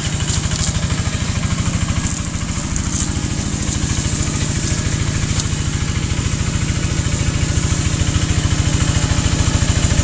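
A small engine running steadily at idle, its even low putter unchanged throughout, with leaves and grass rustling over it.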